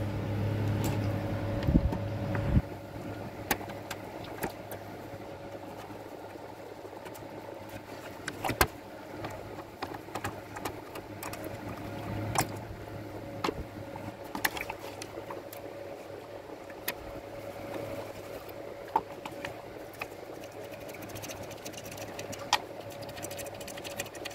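Scattered small metallic clicks and taps from a hand screwdriver and small screws as the screws holding a satellite receiver's circuit board are taken out, over a steady low hum.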